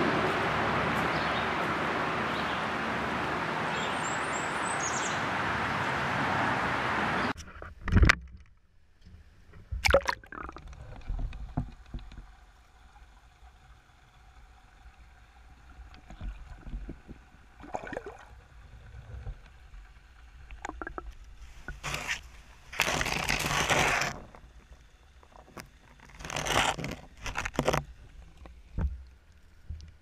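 A steady rushing noise for about seven seconds stops suddenly. After it come the muffled sloshes, gurgles and irregular knocks of water moving against a GoPro's waterproof housing, heard from the submerged camera.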